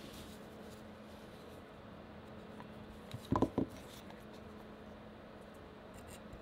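Hands handling a vinyl Funko Pop figure on a desk mat: a quick cluster of three or four light knocks and rubs about three seconds in, over a steady low hum.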